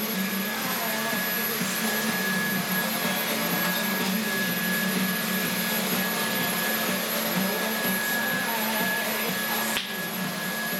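Cordless stick vacuum cleaner running steadily, a constant whine over a rushing hiss, with a short dip just before the end.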